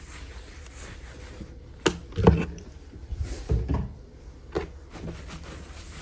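Objects, among them a plastic water bottle, being picked up and set back down on a wooden nightstand while it is dusted: a few short knocks and clunks, the loudest a little after two seconds in, over a steady low hum.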